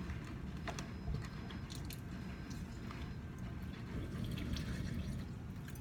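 Faint water and scattered small clicks from aquarium gravel being rinsed by hand under a sink tap, over a low steady room hum.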